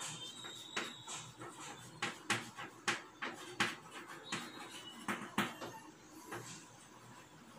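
Chalk writing on a blackboard: a quick, irregular run of sharp taps and scrapes as a word is written, dying away a little over five seconds in.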